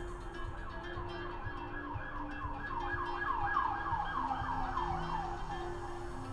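A siren-like wail, a quick falling sweep repeated about four times a second, swelling to its loudest a little past the middle and fading near the end, over steady background music.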